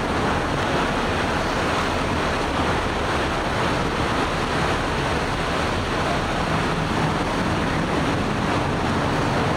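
Steady, even roar of road traffic and idling emergency-vehicle engines, with no sudden sounds; a low engine hum comes up a little in the second half.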